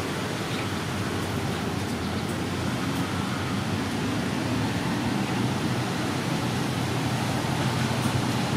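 Steady background noise: an even hiss over a low hum, like distant traffic or machinery.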